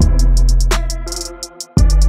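Background music with a deep sustained bass and a drum-machine beat with quick hi-hat ticks. The beat drops out briefly near the end, then comes back in with a heavy hit.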